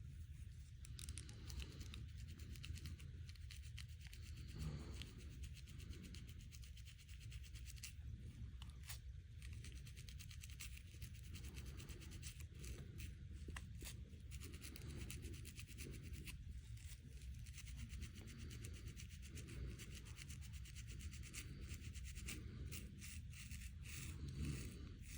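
Fingernails scratching through hair on a scalp: a continuous, fast run of short scratching strokes.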